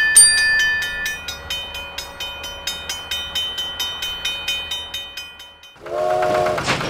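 Railway level-crossing warning bell ringing rapidly, about five strikes a second. About six seconds in, a train horn starts sounding.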